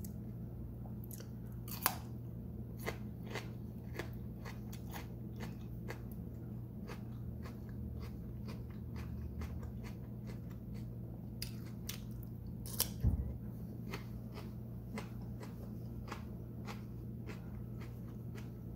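Close-miked chewing of crunchy food: many small crisp crunches from a closed mouth, with a single louder low thump about two-thirds of the way through.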